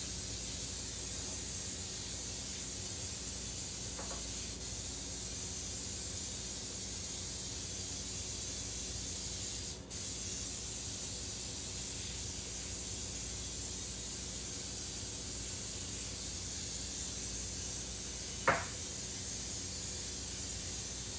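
Aerosol nonstick baking spray hissing steadily as a cake pan is coated, with a short break about ten seconds in. A light knock comes near the end.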